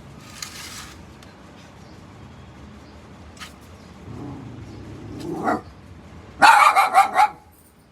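A dog barking: a quick run of several barks near the end, after a sound that rises in pitch a second or so earlier.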